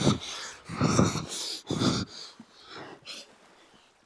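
A man's heavy, wheezing breaths: three loud ones about a second apart, then weaker ones that trail off.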